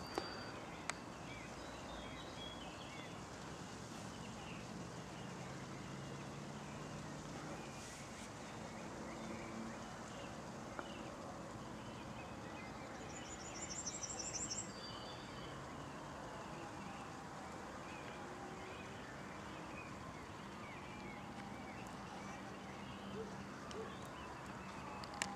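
Outdoor ambience: small birds chirping over a steady distant hum, with a short high rapid trill about halfway through. Slow falling whines come in near the end.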